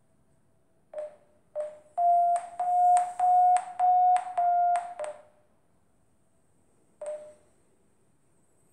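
Mobile phone running a variometer app, beeping its climb tone as the phone is raised by hand. Two single beeps are followed by a quick run of short beeps, about three a second, that go up a little in pitch and then drop back, with one last beep about two seconds later.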